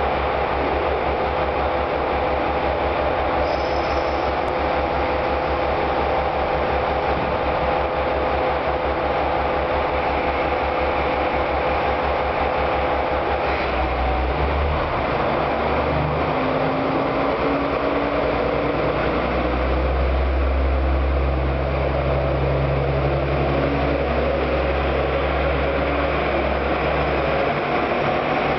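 KiHa 47 diesel railcar engine idling with a steady low throb, then, about halfway through, throttling up as the train pulls away from the platform, its note climbing in steps as it gathers speed.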